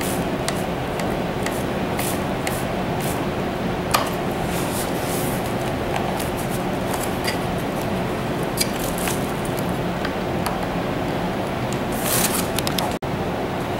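Scattered light clicks, scrapes and plastic rustling from hands handling a recliner's arm cap and its bubble-wrap packaging, with one sharper click about four seconds in, over a steady background hiss and faint hum.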